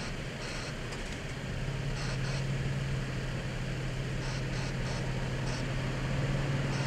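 Steady low hum of a vehicle engine idling, growing louder about a second and a half in, over a faint hiss, with short high-pitched chirps now and then.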